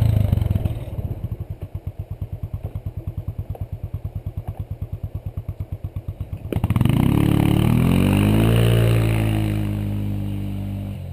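A single-cylinder ATV engine idling with an even chugging beat. About six and a half seconds in there is one sharp knock as the unicycle lands on the dirt. The engine then revs up and pulls away, its pitch rising, then easing off as it fades into the distance.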